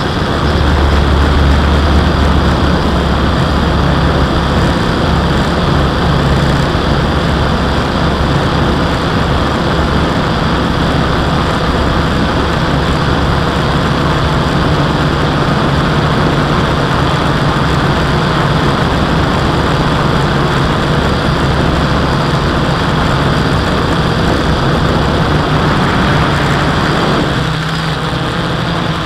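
A multirotor drone's electric motors and propellers humming steadily, with a constant rush of air, heard from a camera riding on the drone. The sound dips a little near the end.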